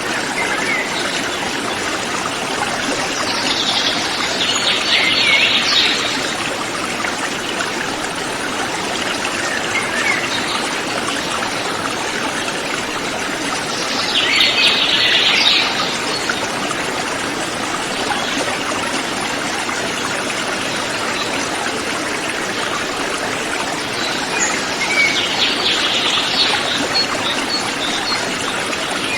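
Mountain river flowing steadily. A forest bird sings a rapid, high trill three times over it, each about two seconds long.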